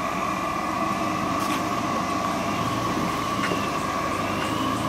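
2010 Jeep Wrangler Rubicon's 3.8-litre V6 running at low revs as it crawls over rocks, a steady drone with a few faint clicks.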